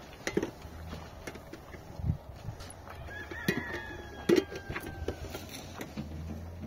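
A rooster crows once, a drawn-out call of about two seconds starting about three seconds in, among scattered knocks and clicks.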